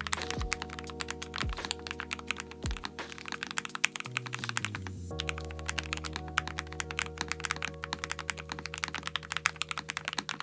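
Fast typing on a Lofree Flow low-profile mechanical keyboard with Kailh POM linear switches: a dense stream of quick key clacks, with background music playing beneath.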